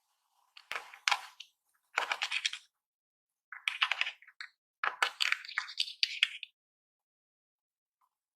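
Slime being squished and worked by hand, giving four bouts of dense crackling clicks and pops from trapped air, with short silences between them.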